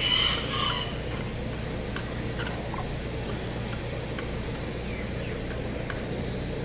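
Chickens in a poultry barn: a short, high-pitched chicken call at the very start, then a few faint clucks over a steady low hum.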